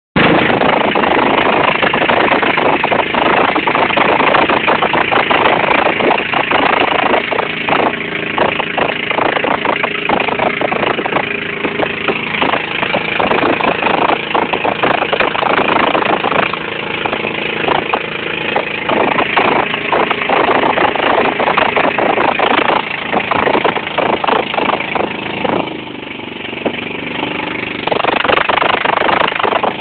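The engine of a motorized outrigger boat running steadily under way, mixed with a loud rush of water and wind. About 26 s in the rush drops for a moment and the engine's hum comes through more clearly.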